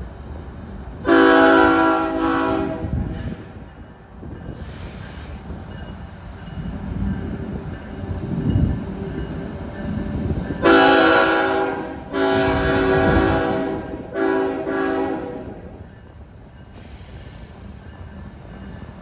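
A Union Pacific freight locomotive's air horn sounds a long chord about a second in, then later two long blasts and a short one, over the continuous low rumble of the passing grain train.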